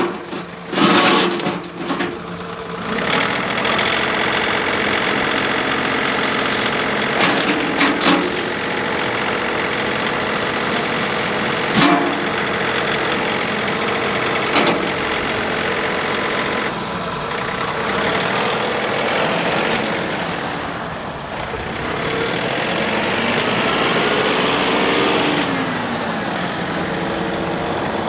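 The three-cylinder Yanmar turbo diesel engine of a 2014 John Deere 3046R compact tractor running steadily. A few sharp clicks sound around the middle, and the engine tone shifts later on.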